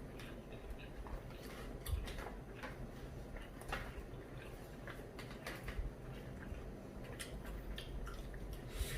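Scattered light clicks and taps of eating utensils against dishes, with a soft low thump about two seconds in and again near the end.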